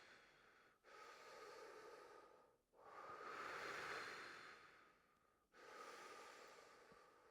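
A person breathing slowly and deeply during an exercise: three long, faint breaths of about two seconds each, with short pauses between them.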